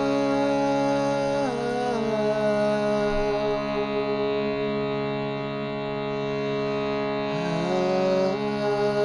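Sustained meditative drone from overtone-rich sound-healing instruments: many tones held together. One held note slides down in pitch about a second and a half in and back up near the end.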